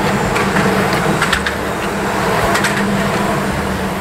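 Vehicle engine idling: a steady low hum over a rumble, with a couple of short sharp clicks or hisses about a second in and again around two and a half seconds in.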